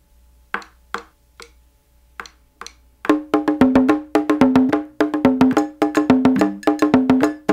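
Intro music: a few sparse wood-block-like clicks, then about three seconds in a louder, quick rhythmic tune of struck, pitched percussion notes starts up.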